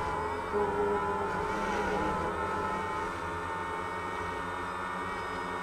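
Quadcopter drone's electric motors and propellers whining in flight, heard from a camera mounted on the drone. Several steady tones waver slightly in pitch as the motors adjust, over a low rumble.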